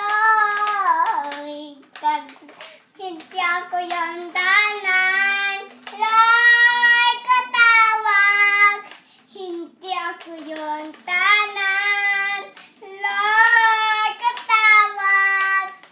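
A young child singing in short, high-pitched phrases with brief pauses between them, with a few light clicks in the gaps.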